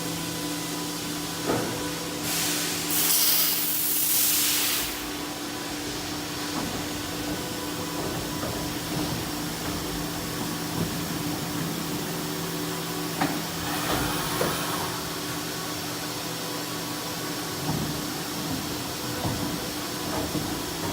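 Fadal VMC 4020HT CNC vertical mill running with a steady hum and fixed tones. Two loud bursts of air hiss break in, one about two seconds in lasting a few seconds and a shorter one near the middle, with a few sharp clicks.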